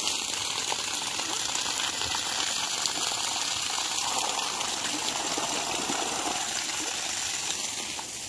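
Water gushing steadily from the open end of a wide garden hose.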